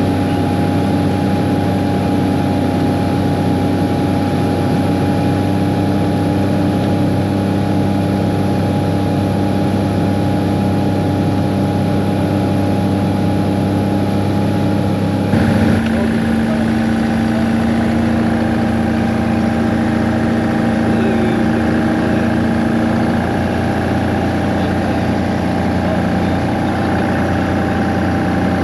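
Light aircraft's piston engine and propeller running steadily. About halfway through the engine note shifts suddenly to a different pitch and keeps running steadily.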